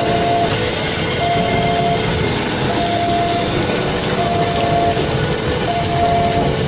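A JR 205 series electric multiple unit running past close by, with steady wheel-on-rail noise from its passing cars. A level-crossing warning tone sounds over it, repeating about every second and a half.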